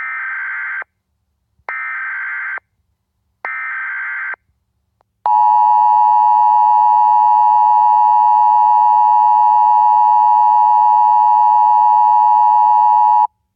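Emergency Alert System tones: three short bursts of SAME header data tones, just under a second each, then a louder steady attention tone lasting about eight seconds that cuts off sharply.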